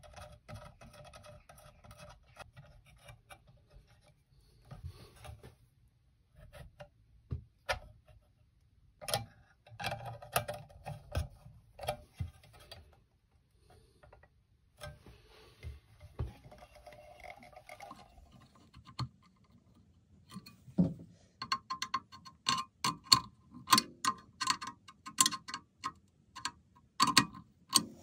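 Clear plastic eye shield and its metal bracket being fitted to a bench grinder's wheel guard: scattered plastic and metal clicks and knocks. In the last several seconds this turns into a quicker, louder run of sharp clicks.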